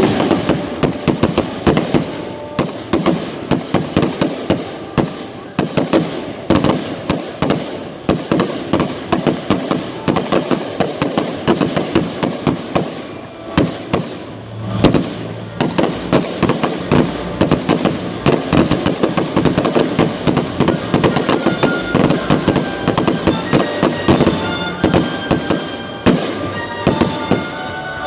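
Fireworks going off in a rapid, dense barrage of bangs and crackles, with a short lull about halfway through and then a deep boom. Music plays underneath and becomes more noticeable near the end.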